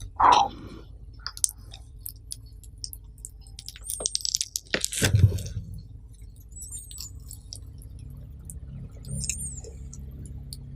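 A person chewing a mouthful of nasi pecel close to the microphone, with wet mouth clicks. There are a few louder bites about four to five seconds in, then quieter chewing.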